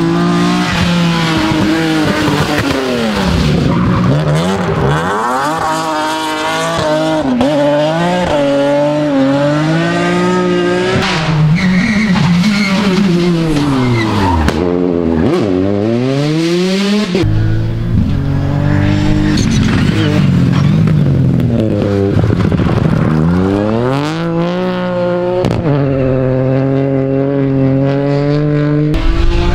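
Several rally cars, one after another, driven hard on a tarmac stage: engines revving up and dropping away through gear changes and lifts, with tyre squeal as they slide and spin their wheels.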